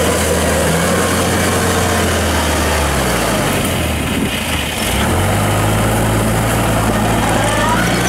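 Engine of a tracked crawler carrier running steadily under a full load of rice sacks. About halfway through, the engine note dips briefly, then settles at a higher pitch.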